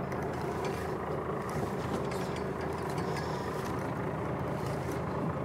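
Fishing boat's engine running steadily, an even hum with water and wind noise underneath.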